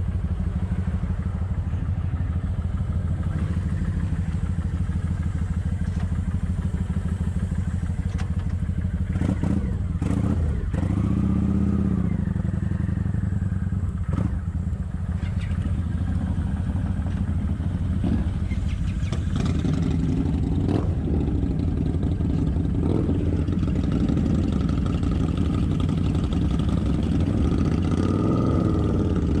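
Kawasaki Vulcan 900's V-twin engine running steadily under way, heard from on the motorcycle, with its pitch rising and falling about a third of the way in and again near the end, and scattered clicks.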